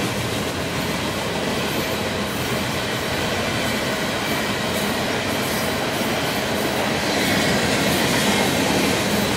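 Oil train tank cars rolling past on the rails: a steady rumble and clatter of steel wheels on the track.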